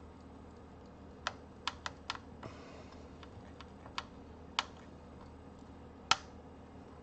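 Irregular sharp little clicks and ticks of a metal tool working a component loose on a circuit board, the loudest about six seconds in, with a brief soft hiss about two and a half seconds in.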